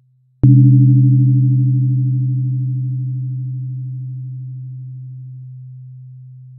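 A 128 Hz tuning fork struck once about half a second in: a sharp click at the strike, then a low pure hum that fades slowly. A fainter upper tone with a fluttering beat dies away after about five seconds. Before the strike, the hum of the previous strike is still fading out.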